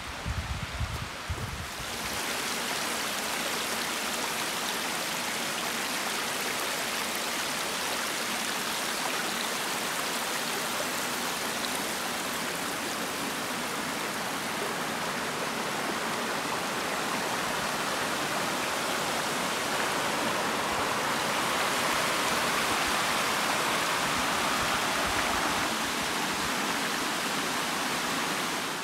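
Creek water rushing and splashing down a small cascade over rock ledges, a steady even rush that swells a little about three-quarters of the way in. A few low thumps in the first two seconds.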